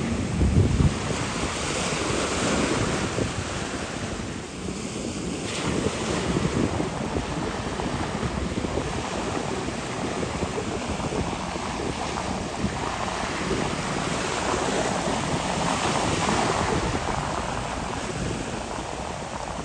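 Wind buffeting the microphone over rushing water on a moving jet ski, swelling and easing, with a low thump about half a second in.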